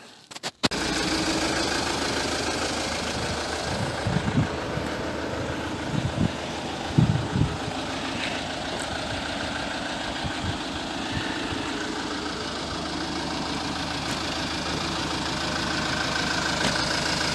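An engine idling steadily, cutting in abruptly about half a second in, with a few short low thumps partway through.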